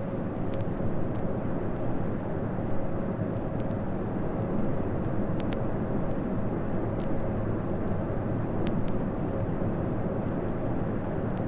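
Boeing 747 cabin noise on approach: a steady rush of engine and airflow noise with a faint steady hum and a few small clicks.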